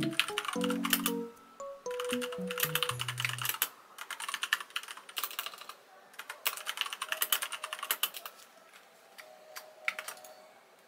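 Typing on a computer keyboard: about four bursts of rapid keystroke clicks with short pauses between them, thinning to a few scattered clicks near the end.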